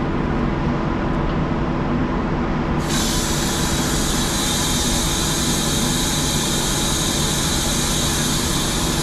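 Compressed air rushing into a semi truck tire to seat its bead: a loud, steady hiss starts about three seconds in and holds. Under it runs a steady low rumble.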